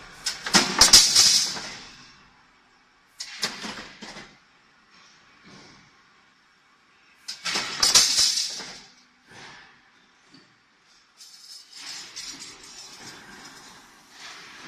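CNC flat bar and channel punching and shearing line at work: intermittent bursts of sharp metallic clatter, each trailing off in a hiss, with near-quiet gaps between. The two loudest bursts come about half a second in and about eight seconds in.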